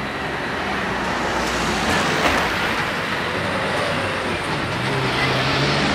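Cars driving across a railway level crossing: engine and tyre noise, with a single sharp knock about two seconds in and a car's engine growing louder near the end.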